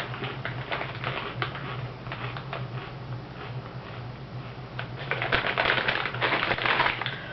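Sabritas Adobadas potato chips being crunched while chewing: a rapid run of crisp crackles, getting louder and denser about five seconds in.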